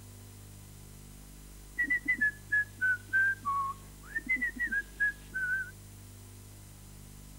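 A woman whistling a short tune of two falling phrases, the second opening with an upward slide. It starts about two seconds in and lasts about four seconds.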